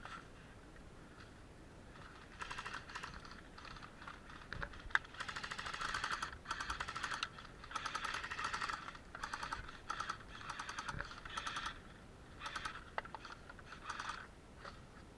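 Repeated short bursts of rapid mechanical clicking, typical of airsoft electric guns firing on full auto, with short gaps between bursts. A single sharper click stands out about five seconds in.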